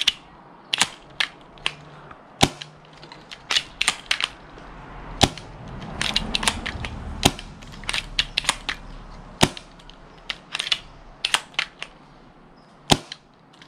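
Spring-powered bolt-action airsoft sniper rifle being cycled and dry-fired: clusters of clacking bolt clicks as the bolt is worked, with several louder sharp snaps about every two seconds.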